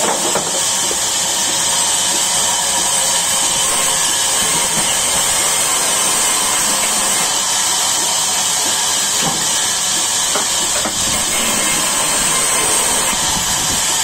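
Large vertical sawmill band saw running and cutting through a slab of log: a steady, high-pitched hiss of blade and wood with the machine's drone beneath, and a few faint knocks of timber being handled.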